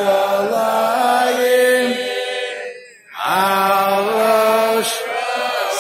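A group of men singing a slow melody together in unison, with long held notes. The singing breaks off briefly about three seconds in and then starts again.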